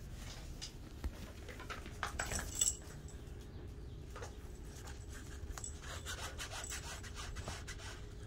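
Scratching and rustling of a kitten scrambling on a fabric play tunnel, with a louder flurry of scratches about two seconds in.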